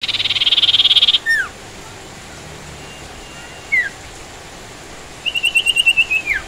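Sirtu songbird calling: a fast buzzy trill, then two short falling whistles, then a quick run of about ten high notes ending in a falling slur, over a steady background hiss.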